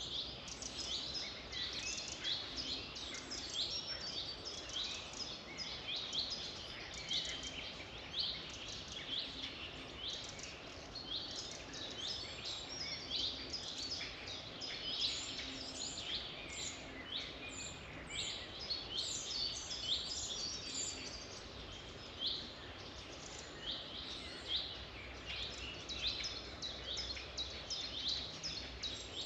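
A dense chorus of songbirds: many short, high chirps overlapping continuously, over a faint steady background noise.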